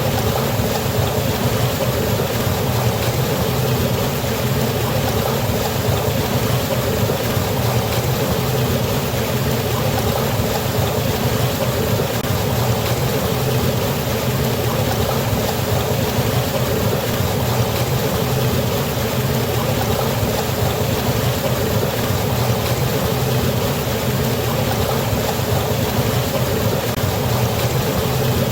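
Waterfall or river water rushing steadily, a dense unbroken roar with most of its weight low down.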